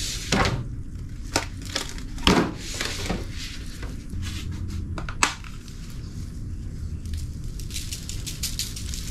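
Plastic meat packaging and a disposable aluminium foil pan crinkling and clicking as raw beef strips are handled into the pan. Near the end, a seasoning shaker is shaken over the meat, giving a fast run of fine ticks.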